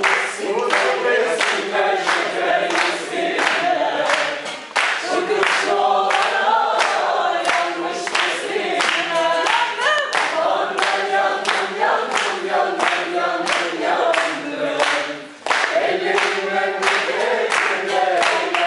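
Several voices singing a Turkish folk tune together to a bağlama (saz), over a steady beat of sharp strokes about three times a second, from hand claps and the plucked saz.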